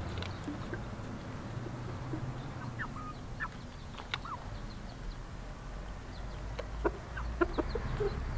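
Chickens clucking quietly, with short scattered chirps. There is a sharp tap about four seconds in, and a quick run of clucks near the end.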